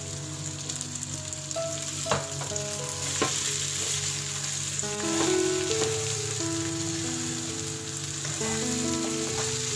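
Chicken pieces sizzling in hot oil with onions and garlic in a nonstick frying pan, stirred with a metal spoon. The spoon clinks sharply against the pan a couple of times.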